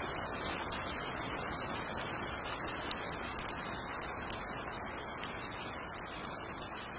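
Steady, even hiss with faint scattered crackles, slowly fading.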